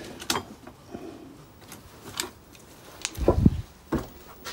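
Scattered clicks and light knocks of things being handled on a workbench, with a louder, dull thump about three seconds in and a sharp knock just after.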